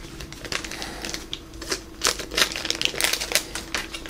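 Thin clear plastic bag crinkling in the hands as it is pulled open to get the small toy figure out, in irregular sharp crackles that grow busier after about two seconds.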